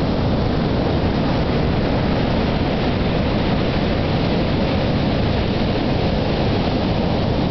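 Steady, even rush of wind and surf.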